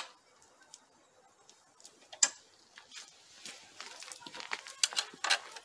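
Scattered wooden knocks and clicks as pallet-wood planks are handled and fitted onto a metal bench frame, with one sharp knock about two seconds in and a quick run of clicks near the end.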